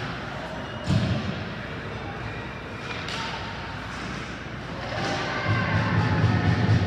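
The sound of an ice hockey game in a rink: a sharp thud about a second in and a lighter knock near three seconds, over the hall's background noise. From about five and a half seconds a louder, low rumble of voices and activity builds.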